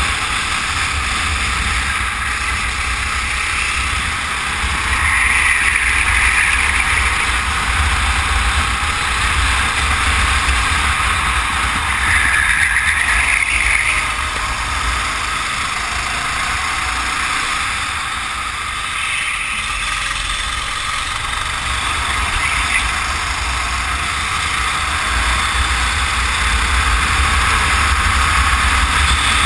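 Racing kart engine running at speed, its sound swelling several times, with a heavy rumble of wind on the microphone.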